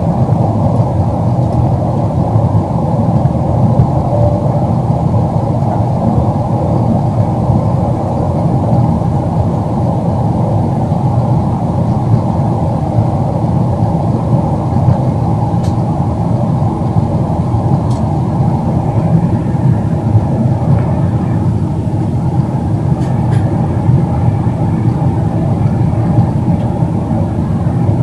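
Jet airliner cabin noise in the climb after take-off: a steady, loud rush of engines and airflow heard from inside the cabin, with a few faint clicks.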